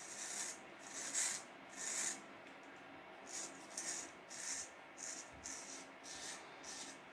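Wilkinson Pall Mall single-edge razor scraping through beard stubble in about a dozen short strokes, a dry rasping sound of the blade cutting hair.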